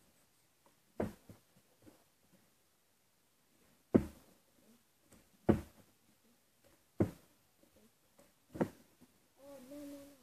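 Plastic bottle thudding down on a hard floor five times, about a second and a half apart: repeated bottle flips landing.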